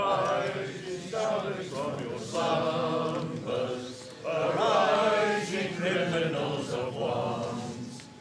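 A choir singing in long held phrases, several voices together.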